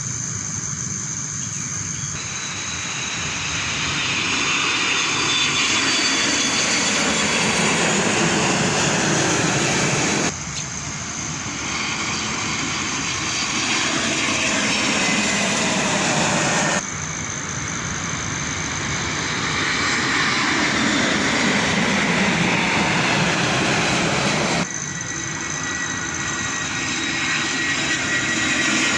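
Airplane engine noise from an aircraft flying past: a steady rushing sound whose tone slowly sweeps down and up. It breaks off abruptly three times and resumes at once, where separate takes are joined.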